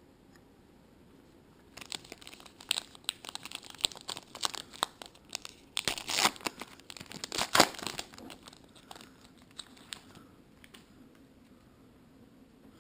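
A trading card pack's wrapper being torn open and crinkled by hand: a run of crackling from about two seconds in to about ten seconds, loudest a little past the middle.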